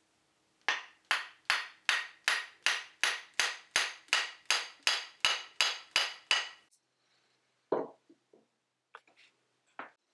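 A hammer striking the steel ring on the butt end of a chisel's wooden handle about fifteen times in a steady rhythm, some two and a half blows a second, each blow ringing. Then a single heavier knock and a few light knocks.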